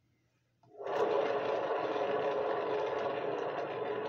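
A canvas spinner's motor starts up just under a second in and runs with a steady whir, turning the canvas fast.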